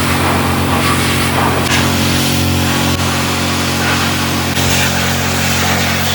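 A motor-driven machine running steadily, with a low hum under a loud hiss that swells a little at times.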